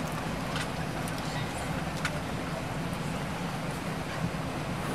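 Steady cabin noise inside an Airbus A380 taxiing after landing: the engines at idle give a low, even hum over a rushing background, with a couple of faint clicks.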